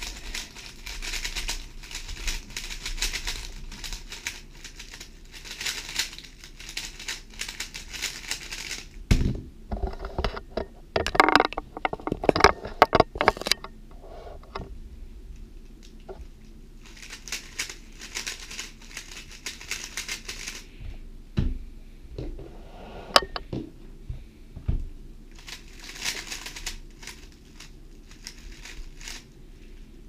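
GAN 11 M Pro magnetic 3x3 speedcube being turned very fast: rapid plastic clicking and clacking in bursts of a few seconds each as algorithms are executed. Several louder knocks come about a third of the way in.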